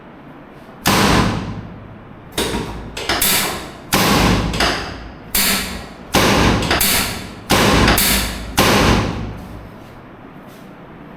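A series of about ten loud, sharp knocks, each fading out over up to a second, coming at uneven intervals for about eight seconds.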